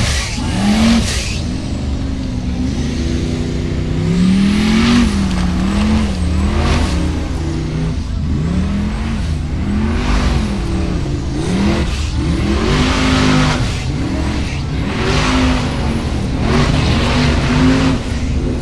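Formula Offroad buggy's engine revving hard over and over, its pitch rising and falling with each blip of the throttle, as the tyres spin in loose dirt on a steep climb.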